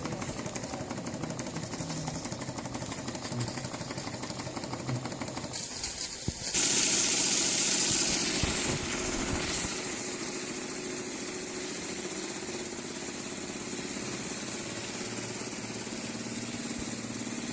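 Model three-cylinder steam engine running fast, its exhaust beats coming as a rapid run of clicks. About six seconds in, a loud hiss starts and lasts about three seconds, after which the engine runs on more evenly with a steady hum under a high hiss.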